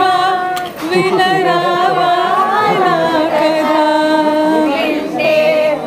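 A woman singing solo in long held notes that bend and waver, with a short break about a second in.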